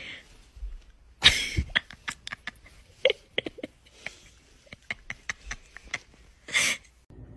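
Raccoon making short squeaks and chitters, broken by two brief breathy bursts, one about a second in and one near the end.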